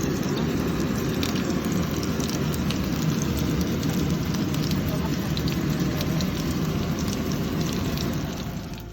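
Chicken steak frying in a hot pan: a steady sizzle with many small scattered crackles, fading out near the end.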